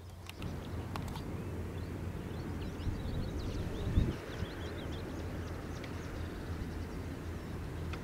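Outdoor riverside ambience: a steady low hum under a faint noise bed, with a few faint bird chirps in the middle and a brief low bump about four seconds in.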